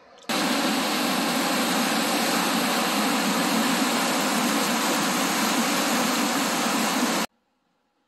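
Whitewater rapids rushing steadily through a rocky river chute. It starts suddenly just after the beginning and cuts off abruptly near the end.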